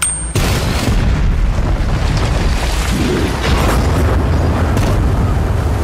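A loud, deep rumbling rush of noise from a film soundtrack, cutting in suddenly about a third of a second in after a brief gap and holding steady.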